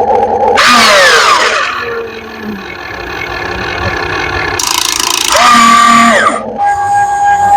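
Radio-controlled excavator's electric motors whining in several loud bursts that start and stop abruptly, with the pitch sliding down as a motor slows about a second in.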